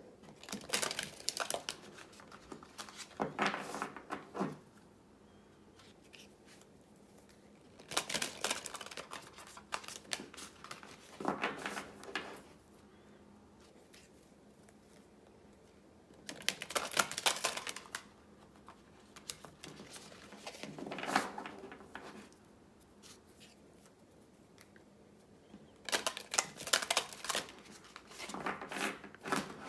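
A deck of oracle cards being shuffled by hand, in about eight separate bursts of rustling and clattering a second or two long, with short pauses between them.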